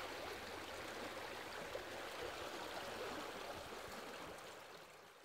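Steady sound of flowing water, gradually fading out from about three seconds in.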